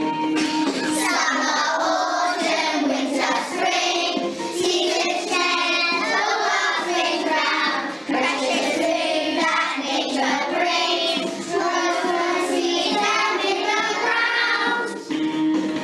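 A group of young children singing a song together over a musical backing track.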